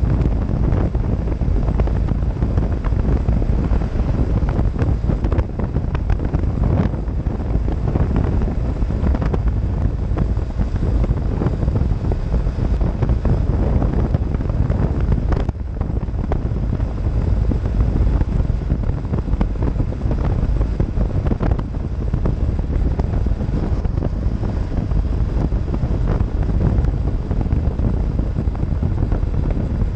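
Steady wind rush buffeting the microphone of a BMW GS motorcycle riding at road speed, with the bike's running and road noise beneath it.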